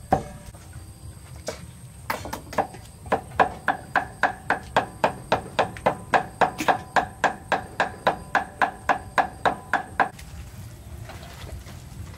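Cleaver mincing meat on a wooden chopping block: a fast, even run of strikes, about three a second, each with a short ring, stopping suddenly near the end. A single sharp knock comes right at the start.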